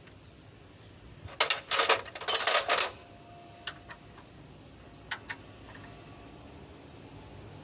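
Metal hand tools clinking and rattling against each other in a loud burst of clatter about a second and a half in, ending with a short metallic ring, followed by three single clicks.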